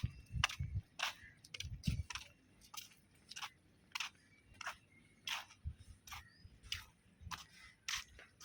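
Footsteps while walking: a run of sharp, irregular clicks, about two or three a second, with soft low thumps in the first two seconds.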